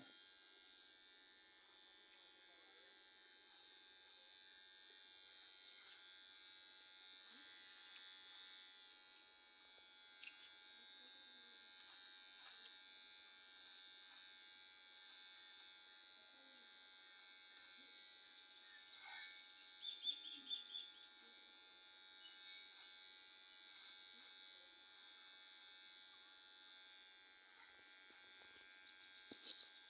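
Electric hair clipper running with a faint, steady buzz while trimming hair.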